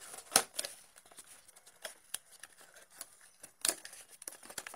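Small cardboard box being opened by hand: scattered light scrapes, clicks and rustles of the card flaps, with two sharper clicks, one just after the start and one near the end.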